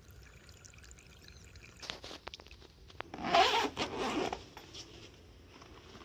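A few sharp clicks, then a short burst of scraping, rustling noise, like gear being handled.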